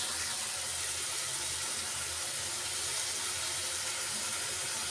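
Onion and ginger-garlic paste frying in hot oil in a kadhai: a steady, even sizzle.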